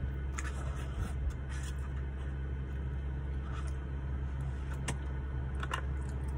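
Steady low hum of a car's cabin, as from the engine idling, with a few short scrapes and taps of a plastic fork against a paper food tray.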